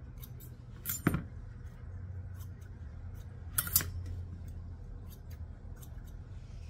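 Light metallic clicks and clinks of grooming scissors working around a puppy's feet, with two louder clattering knocks, one about a second in and one a little past the middle. A low steady hum runs underneath.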